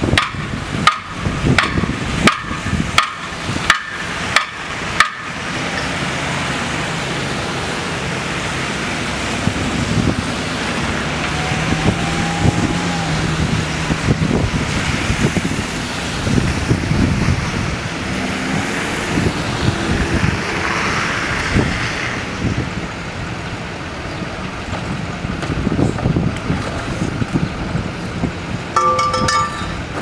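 Street traffic noise with wind on the microphone: vehicles passing and engines running. The sound cuts out in brief dropouts several times during the first five seconds.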